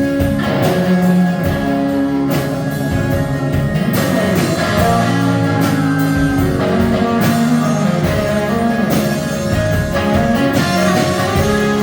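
A live rock band plays an instrumental break, with guitar to the fore over a steady drum beat.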